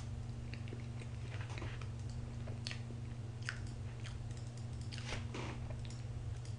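A person chewing a mouthful of soft fresh-cream sponge cake close to the microphone: faint, scattered wet mouth clicks and smacks, over a steady low hum.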